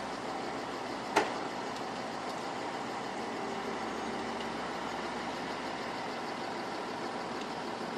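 Engine-driven machinery running steadily, with one sharp knock about a second in.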